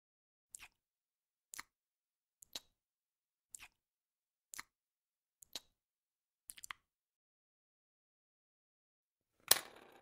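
Lips smacking: seven short, wet smacks about a second apart, several of them a quick double click. Near the end comes a single louder, sharper knock.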